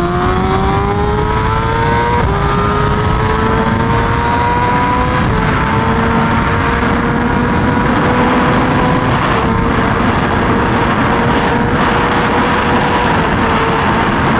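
BMW M1000RR's inline-four engine at full throttle, revving up with two quick upshifts in the first five seconds, then holding a high, steady pitch at speed under a constant rush of wind.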